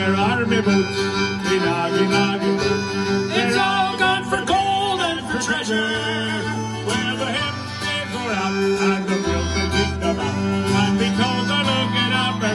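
A sea shanty played on acoustic guitar with other string instruments.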